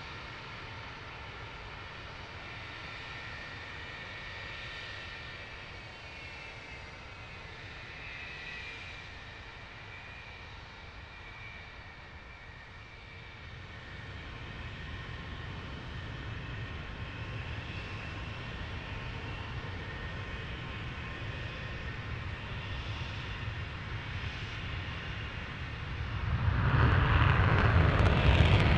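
Su-35S fighters' AL-41F1S turbofan engines running on the ground, a steady jet whine with several high tones. About 26 seconds in, a much louder rushing noise sets in abruptly as a jet goes to high power for its takeoff roll.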